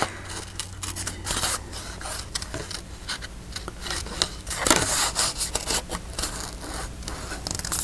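Scissors snipping through paper in a quick, irregular run of short cuts, with the paper rustling as it is turned.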